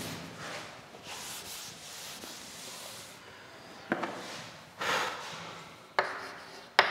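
Cloth duster wiping a chalkboard, a soft rubbing hiss. From about four seconds in come four sharp, scratchy strokes of chalk on the board.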